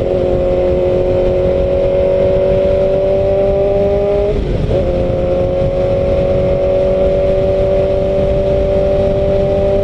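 Yamaha R1 inline-four sport bike with a Toce exhaust pulling at highway speed. Its engine note climbs slowly, breaks and drops in pitch at an upshift about four and a half seconds in, then climbs again, with wind rush on the microphone underneath.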